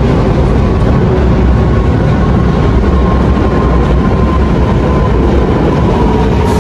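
MF 88 steel-wheeled metro train running: a loud, steady rumble with a faint whine near the top that slowly falls in pitch.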